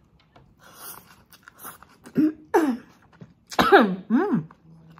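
A woman coughing about four times in quick succession in the second half, after a few soft chewing and crunching noises. The coughing comes right after she calls her chili-laced mouthful spicy.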